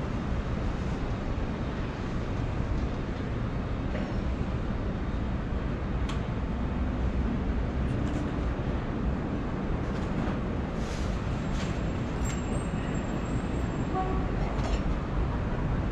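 City street ambience heard while walking: a steady low rumble of distant traffic, with a few faint ticks and knocks in the second half.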